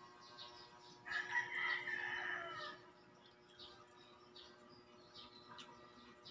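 A rooster crowing once, about a second in, lasting under two seconds and falling in pitch at the end.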